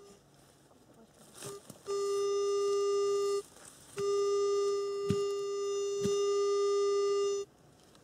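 Metal detector sounding a steady, buzzy target tone twice: about one and a half seconds, then a longer tone of about three and a half seconds, showing metal in the ground. A couple of sharp knocks are heard during the second tone.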